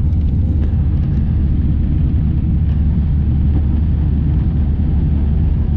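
Airliner engines during takeoff, heard from inside the passenger cabin: a steady, loud, low rumble.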